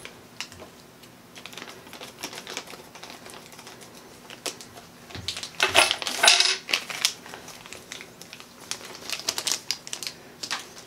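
Small zinc-plated steel L brackets clicking and clinking against one another in their plastic bag as they are handled, with scattered light clicks and a louder flurry of clinks about halfway through.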